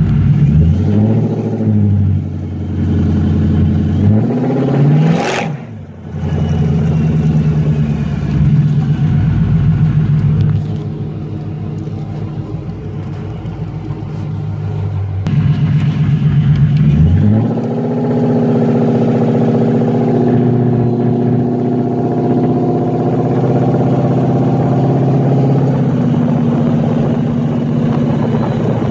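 Kenne Bell-supercharged Ford V8 of a 1955 Ford F100, heard from inside the cab, revving up through the gears several times in the first half, with a sharp rise and drop about five seconds in. For the last ten seconds it runs at a steady cruise.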